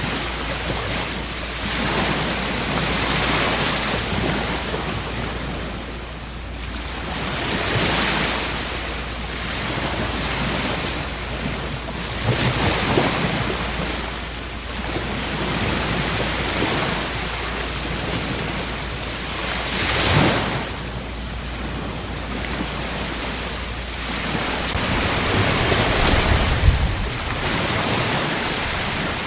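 Sea waves breaking and washing up, the surf swelling and fading every few seconds.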